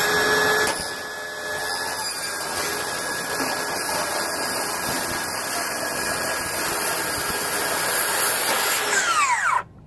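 Circular saw running at full speed as it cuts a corrugated aluminum roofing sheet: a loud, steady whine. The saw winds down with a falling whine near the end.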